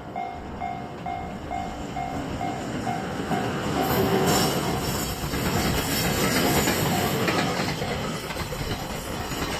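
Japanese level-crossing warning bell dinging steadily, about one and a half times a second, while a JR Freight train comes through. From about four seconds in, the train's wheels clatter over the rail joints in a loud, continuous rumble that nearly drowns out the bell.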